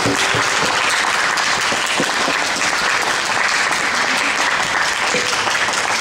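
Audience applauding: many hands clapping at a steady level.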